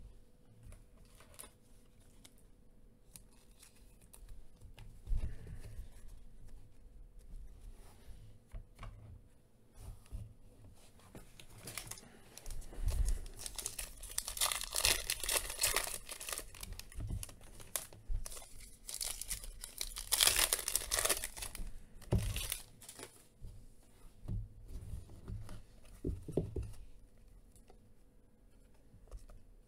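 Plastic wrapper of a Panini Phoenix football card pack being torn open and crinkled by hand, loudest in two stretches around the middle and about two-thirds through, with quieter rustling of the cards being handled in between.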